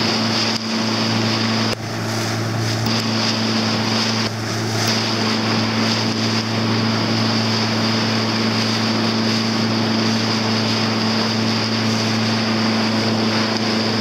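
A motorboat's engine running at a steady pitch while under way, with wind and water rushing past.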